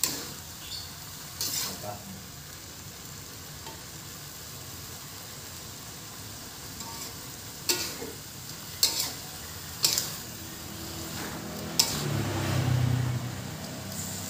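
Chinese cabbage with shrimp and tomato stir-frying in a wok: a steady sizzle, with a metal spatula clinking and scraping against the pan a handful of times. The stirring gets louder for a second or so near the end.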